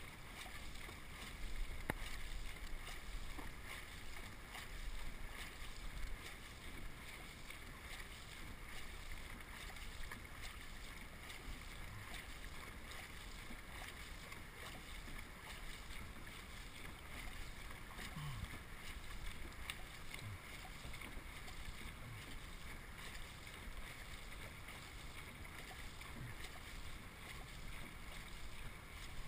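Dragon boat under paddle: a faint, steady wash of water along the hull and paddles, with a low wind rumble on the microphone.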